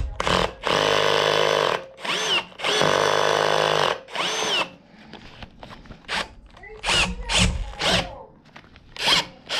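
Electric drill boring into a metal prong clamped in a vise, run in stop-start trigger bursts: two runs of about a second each, then a string of short blips, the motor whine rising and falling as it spins up and stops. This is slow, careful drilling to get the hole right.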